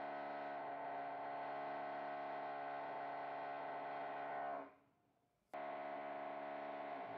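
Background music: a steady held chord. It fades out about four and a half seconds in and cuts back in abruptly about a second later.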